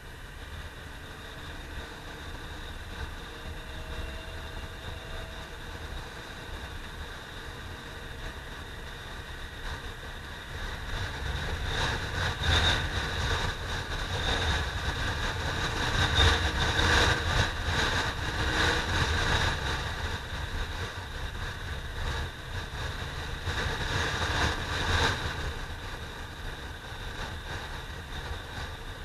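Honda CBR600F3's inline-four engine running while riding, mixed with wind rushing over an action camera on the moving motorcycle. For a long stretch in the middle the rush grows louder and gustier, then it eases again.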